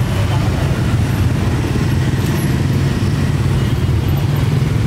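Steady, loud, low engine rumble that holds an even level throughout.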